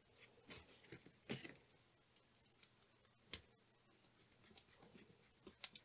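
Faint, scattered small clicks and ticks of a screwdriver loosening the screws of a plastic three-way terminal block, then of a ferrule-tipped wire being pushed into it. The clearest click comes about a second in, and a run of tiny ticks follows in the second half.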